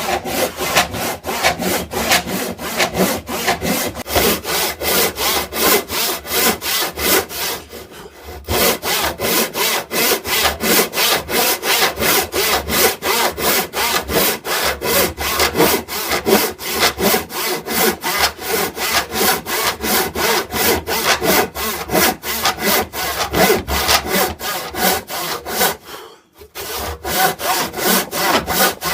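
Hand saw cutting through wood in quick, even back-and-forth strokes, several a second, with two brief pauses along the way.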